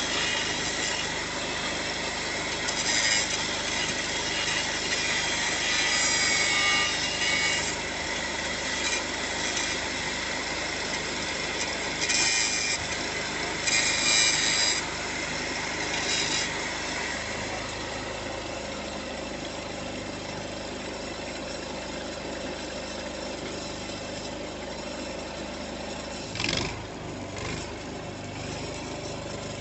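Arc welding on steel pipe: a harsh, hissing crackle that comes and goes in spells of a few seconds, over the steady hum of an idling engine. A short knock comes near the end.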